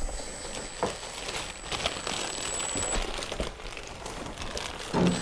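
Faint crinkling and scattered light clicks and taps of hands fitting bolts into the plastic fairing of a Kawasaki ZX-9R.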